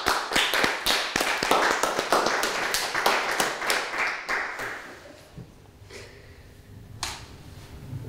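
A small group clapping hands in applause for about four and a half seconds, the claps thinning out and dying away.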